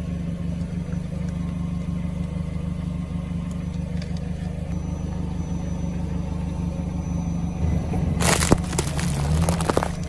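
Car engine idling with a steady low hum; about eight seconds in, about two seconds of crunching and cracking as the car's tyre rolls onto a Nokia 3310 mobile phone and presses it down flat.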